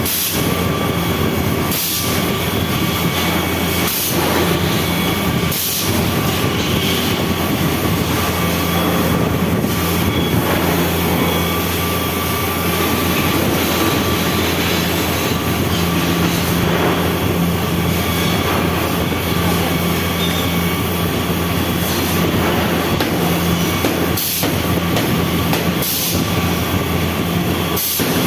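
Resistance welding machine running with a steady hum and machinery noise, broken by occasional sharp clicks every couple of seconds.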